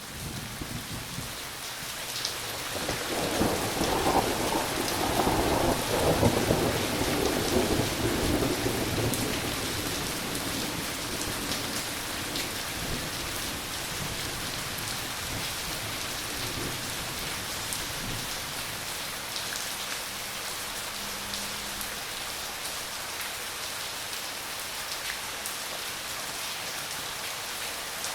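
Steady rain falling, with a roll of thunder rumbling in about two seconds in, swelling for several seconds and fading away by about ten seconds, leaving the rain alone.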